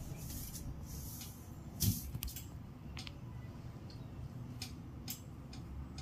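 Faint crinkling rustles and scattered clicks over a steady low room hum, with a soft thump about two seconds in. This is a large cat shifting its weight and settling on crinkly foil insulation on top of a cabinet.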